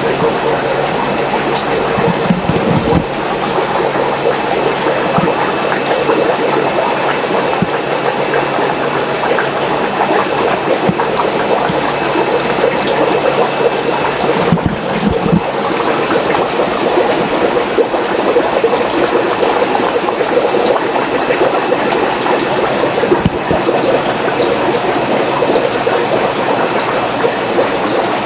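Steady rush of running and trickling water from aquarium filtration and pumps in a room full of fish tanks, with a couple of low thumps near the start and about halfway through.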